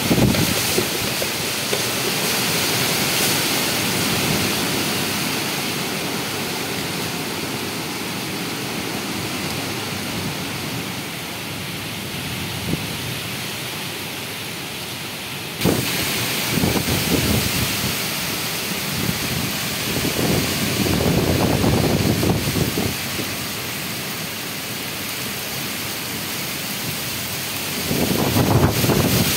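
Nor'wester storm: strong gusty wind tearing through trees, with rain hissing steadily. Gusts buffet the microphone in low rumbles, and the hiss jumps up suddenly about halfway through.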